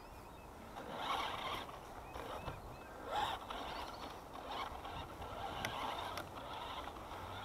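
Brushed electric motor and gearbox of a 1/10-scale 4WD RC truck whirring in short throttle bursts as it crawls over rough grass, loudest about a second in and again about three seconds in.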